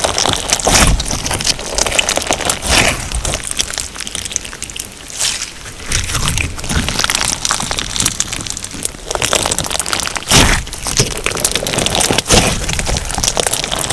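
Crunch slime mixed with sugar beads being squeezed and kneaded by hand, giving a dense run of crackling, popping clicks. It eases off for a couple of seconds about a third of the way in, then picks up again, with a few louder pops near the end.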